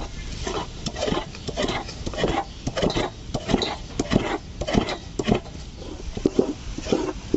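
Ripe palmyra palm fruit being scraped by hand against a rough wooden board over a steel bowl to work the pulp off the fibrous seeds. The wet scraping strokes come about two or three a second, in an uneven rhythm.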